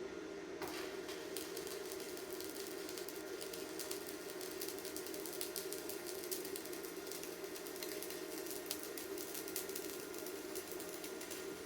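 Stick welding arc with an E6013 rod crackling steadily, a dense fizzing crackle that starts about half a second in.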